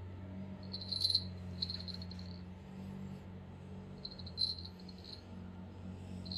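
A small jingle bell rattling in three quick bursts, about a second in, about four seconds in and again near the end, as a cat swats at a feather wand toy. A low steady hum runs underneath.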